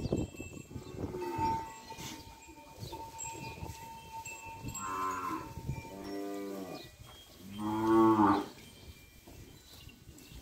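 Kankrej cattle mooing: three calls about a second apart in the second half, the last the loudest.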